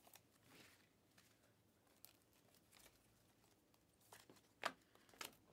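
Near silence with a few soft clicks of Panini Mosaic basketball cards being slid off a stack in the hands. The two sharpest come about four and a half and five seconds in.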